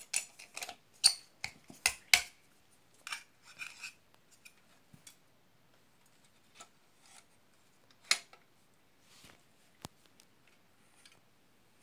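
Metal clicks, knocks and light scraping as an old electric iron's metal body and cover are handled, lifted and turned. A quick run of sharp clicks in the first few seconds, then only a few single clicks.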